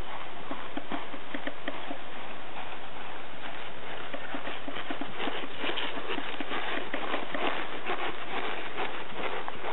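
Hoofbeats of a Thoroughbred horse moving on grass, over a steady hiss. They grow louder and busier in the second half as the horse passes close by.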